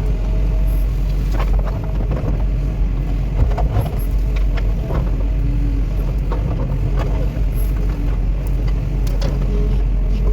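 Cat 316E hydraulic excavator's diesel engine running steadily, with scattered knocks and clanks on top.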